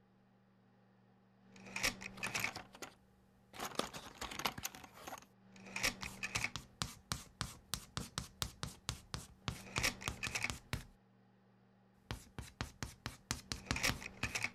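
Bursts of quick scratching strokes, about four or five a second, starting about a second and a half in and pausing briefly near the end, over a faint steady hum.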